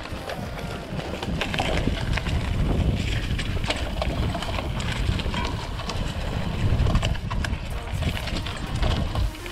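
Mountain bike ridden along a dirt trail: steady wind buffeting the camera microphone, with many sharp clicks and clatters from the tyres and frame over bumps and debris.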